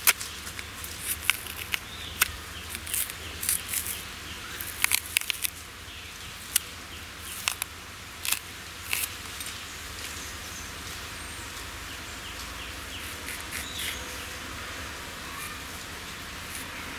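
The thick green peel of a raw nendran plantain being prised and torn off by hand, giving a run of crisp snaps and clicks through the first half. After that only a steady low background hum is left.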